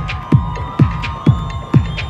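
Techno music with a deep kick drum on every beat, a little over two a second, hi-hat ticks between the kicks and a held synth line above.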